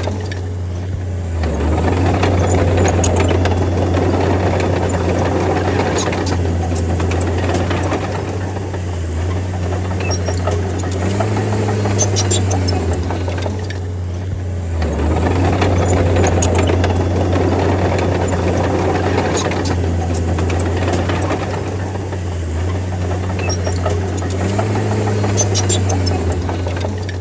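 D30 bulldozer's diesel engine running hard under varying load, its note dipping and recovering as the blade pushes, with groups of sharp metallic clanks from the tracks and blade.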